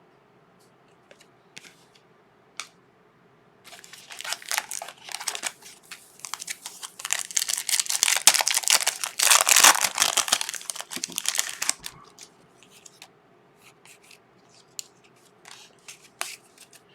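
Foil trading-card pack wrapper being torn open and crinkled: a dense crackling that starts about four seconds in, is loudest in the middle and dies away after about eight seconds, with light clicks of cards being handled before and after.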